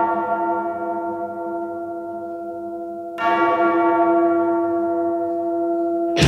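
A bell ringing with a long, slowly fading tone, struck again about three seconds in; the ringing is cut off abruptly at the very end.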